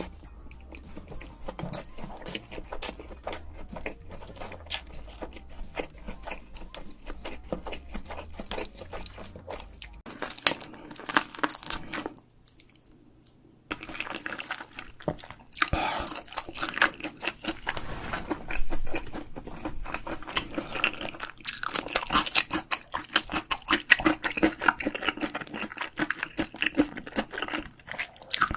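Close-miked eating sounds: crunching and chewing, with many small crackling bites. There is a brief lull about twelve seconds in, and the crackling grows busier and louder afterwards.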